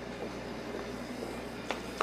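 Steady background noise, then two light knocks of a utensil against a stainless steel mixing bowl near the end as stirring of the onion purée begins.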